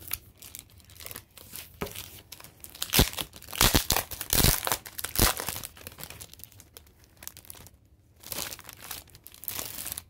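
Thin clear plastic wrapping crinkling and crackling as it is peeled off and handled, loudest in a busy stretch around the middle, with a few more crinkles near the end.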